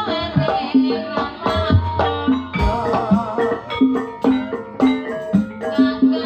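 Live Javanese jaranan accompaniment: a gamelan-style ensemble plays a steady, fast pattern of struck pitched notes, driven by hand-drum strokes.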